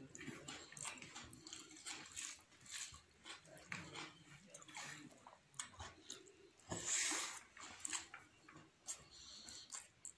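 Close-up wet chewing and lip-smacking of a man eating rice and chicken curry by hand, with many short smacking clicks. There is one louder rushing noise about seven seconds in.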